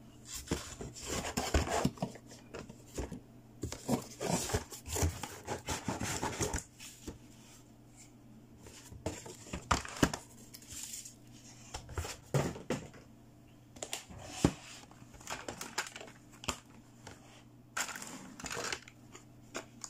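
Hard plastic toy playset pieces being handled, knocked together and set down: irregular clicks and knocks with scraping and rustling, busiest in the first few seconds, with a few sharper clicks later on.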